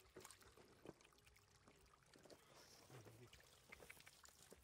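Faint wet splashing and trickling in shallow muddy water, with scattered small slaps and clicks, as hands grab at fish in the mud and rubber boots step through it.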